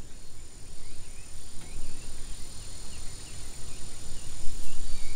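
Outdoor summer ambience: a steady high insect drone and short, repeated bird chirps over a low rumble of wind.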